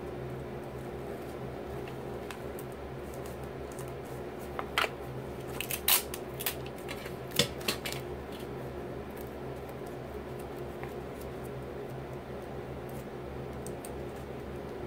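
A handmade taped paper doll pillow being handled and worked: a cluster of short, sharp snips and crackles between about four and eight seconds in, over a steady low hum.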